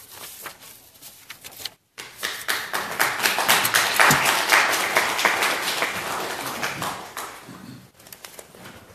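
Congregation applauding: a few scattered claps at first, then about two seconds in a full round of applause that peaks midway and dies away near the end.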